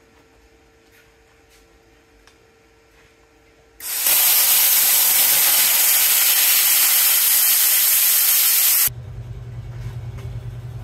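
Plasma cutter cutting a bracket off a Dana 60 axle housing: a loud, steady hiss of the arc and air that starts suddenly about four seconds in and cuts off about five seconds later. A steady low hum follows near the end.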